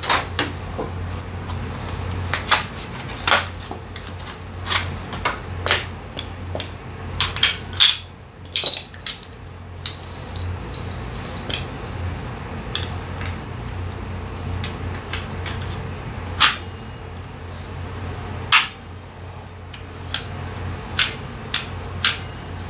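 Scattered metallic clinks and knocks of a motorcycle's rear drum-brake parts being handled, as the brake shoes and their springs are worked off the brake panel. The clinks come thick in the first half, then sparser, with a couple of sharper clacks, over a steady low hum.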